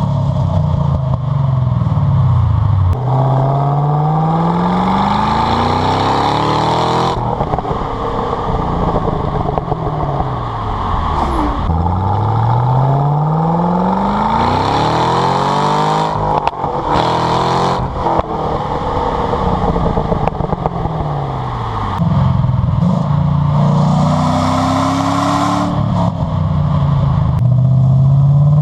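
Exhaust of a 2015 Chevrolet SS's 6.2-litre LS3 V8, revving up and dropping back several times, its pitch rising and falling.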